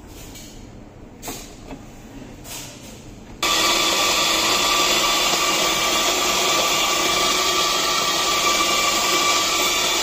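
A few light knocks, then about a third of the way in an on-demand espresso grinder's motor starts and runs steadily, grinding coffee beans into a portafilter with a loud, even whir.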